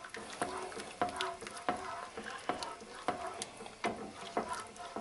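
Wire whisk stirring milk into a butter-and-flour roux in a metal pan, scraping and clicking against the pan about twice a second as the Alfredo sauce base thickens.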